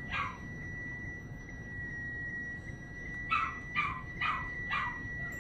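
English bulldog puppy panting, with four quick breaths about half a second apart near the end, over a steady high electronic tone from the monitoring equipment.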